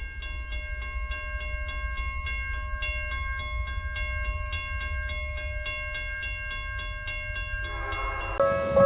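Japanese railway level crossing warning bell ringing in a fast, even rhythm of about three strikes a second, over a low rumble. About eight seconds in, a louder, noisier sound with a slower pulse comes in.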